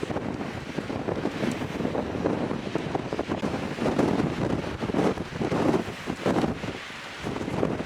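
Strong gusty wind, about 30 miles an hour, buffeting a camera microphone fitted with a windscreen, swelling and easing in gusts.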